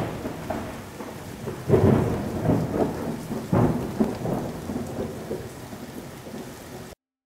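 Thunderstorm: rolling thunder over steady rain, with sharp swells of thunder about two seconds in and again about three and a half seconds in. The sound cuts off abruptly near the end.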